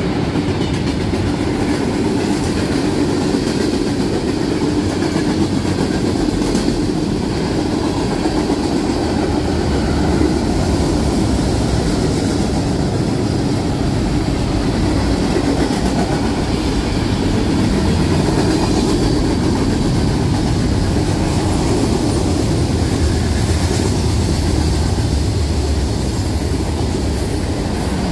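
Freight train cars rolling past close by, a steady, loud rumble of steel wheels on the rails with some clickety-clack over the rail joints.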